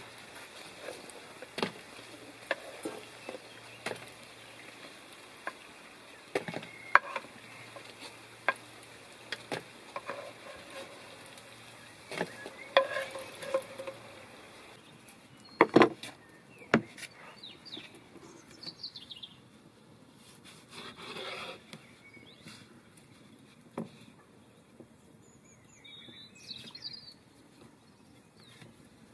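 A wooden stick scraping and tapping in a ceramic bowl as a thick food mixture is worked, with scattered clicks and knocks, the loudest a sharp knock just past halfway. After that it goes quieter, with a few faint high chirps.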